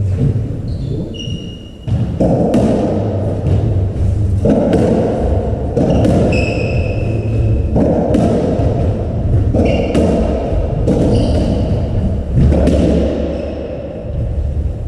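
A racketball rally: the hollow rubber ball thumping off the court walls and floor and being struck by the rackets, at an irregular pace, in a reverberant court. It gets going about two seconds in, with a few short high squeaks among the hits.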